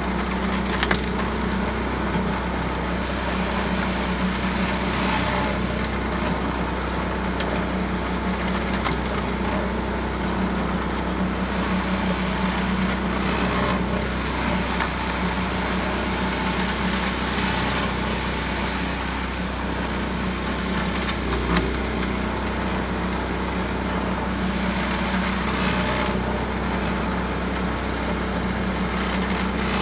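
Small engine running steadily as it drives a pitman-arm firewood splitter, with a few sharp cracks and knocks as rounds of wood are split.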